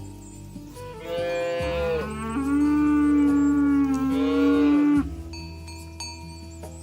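A cow mooing: one long, loud moo of about four seconds that steps up in pitch partway through, over soft background music.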